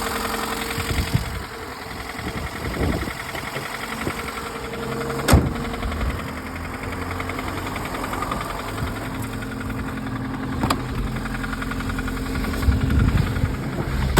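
Lada Priora's four-cylinder petrol engine idling with a knock from inside the engine, high-mileage and, by the owner's account, already knocking. A sharp click about five seconds in and another about ten and a half seconds in.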